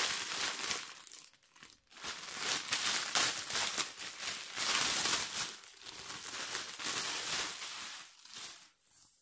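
Clear plastic zip bag crinkling and rustling as it is handled and opened by hand, with a short lull a little under two seconds in.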